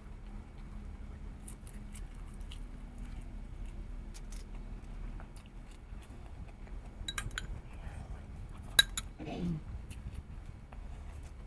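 Eating at a table: soft handling and chewing sounds with scattered light clinks of tableware. One sharp clink about nine seconds in, followed by a short falling vocal sound.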